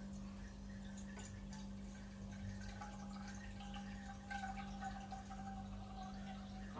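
Pot of water heating on the stove as it comes to the boil, with faint scattered ticking and bubbling over a steady low hum.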